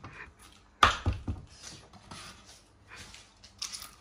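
A cleaver chopping hard grilled dried fish on a wooden cutting board: one sharp chop about a second in, then a couple of lighter knocks, and faint crackling near the end.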